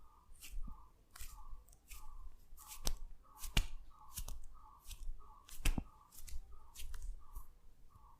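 Hands massaging skin: quick rubbing and brushing strokes with three sharper slaps a little before and after the middle, over a faint repeating squeak about twice a second.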